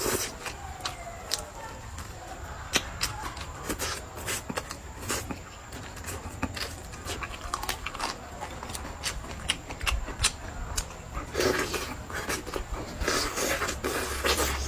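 Close-up eating sounds: chewing with many irregular sharp mouth clicks, and a few longer, noisier bursts in the last few seconds.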